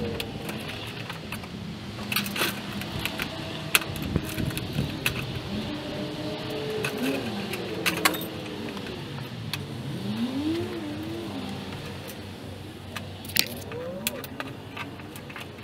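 Hand tin snips cutting through a metal rain gutter: repeated sharp clicks of the blades biting the metal, with squeaky tones that rise and fall as the gutter bends and tears, strongest in the middle and again near the end.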